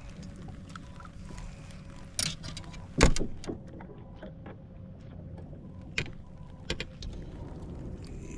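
Several sharp knocks and clatters of gear on a small boat, the loudest about three seconds in, over a steady low rumble and a faint hum.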